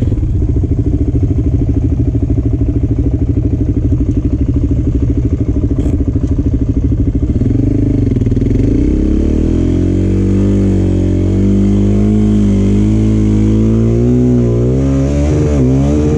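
Suzuki sport quad's engine running hard in loose sand, with a dense, fast pulsing for the first half. From about eight seconds in the pitch swings up and down as the throttle is worked, rising and falling once more near the end.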